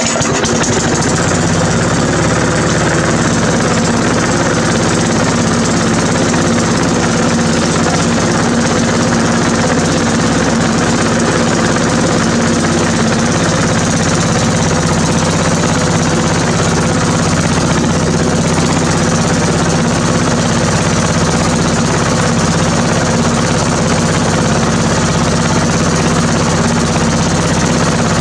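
Briggs & Stratton single-cylinder lawn mower engine running steadily at a constant speed, just after being pull-started with a new flywheel key fitted.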